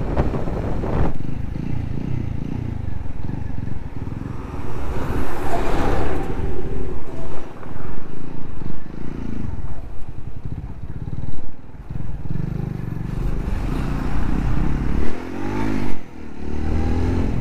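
Motorcycle running along a road at speed: engine and road rumble that rises and falls unevenly. Around the middle it draws close alongside a truck and the noise swells.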